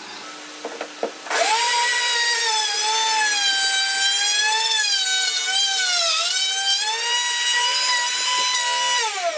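Plunge router motor switched on about a second in and running with a high whine, its pitch sagging briefly around the middle as the bit loads in the cut. It is switched off near the end and winds down in pitch.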